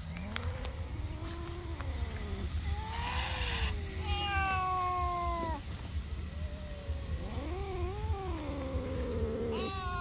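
An angry cat yowling: long, drawn-out calls that waver up and down in pitch, one after another, with a higher, sharper call about four seconds in. A short hissing sound comes about three seconds in.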